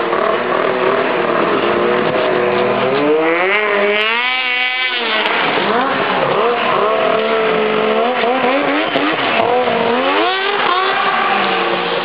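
Two-stroke snowmobile engine with an aftermarket exhaust idling, blipped up to a high rev and back down once, then given a shorter rev near the end.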